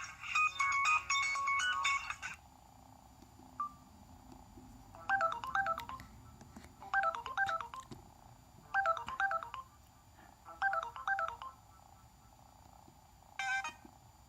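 Samsung Convoy phone ringtones playing through the phone's small speaker. A busy melodic ringtone cuts off about two seconds in, a single short beep follows, then a new ringtone starts: a short warbling chirp figure repeated about every two seconds.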